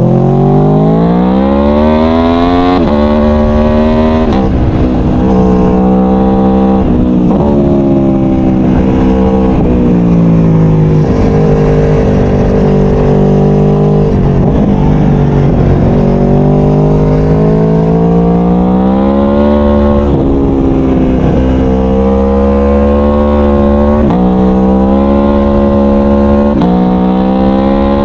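Aprilia Tuono V4 1100's 65° V4 engine accelerating hard through the gears, its pitch climbing and then dropping sharply at each upshift. About halfway through it eases off and the pitch sinks, then it pulls again and shifts up a few more times.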